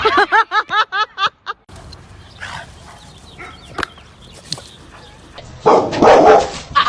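A dog yipping in a quick run of about eight short, high calls over the first second and a half. After a break come quieter scattered sounds, then a loud harsh sound near the end.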